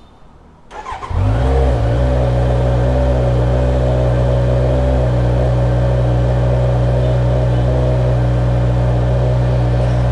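Kawasaki Z900's inline-four engine cranked and catching about a second in, then settling into a steady idle.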